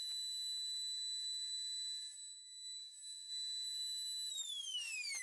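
CNC router spindle running with a steady high whine, with a few short lower tones from the machine. A little over four seconds in, the spindle is switched off and its whine falls away in pitch as it spins down.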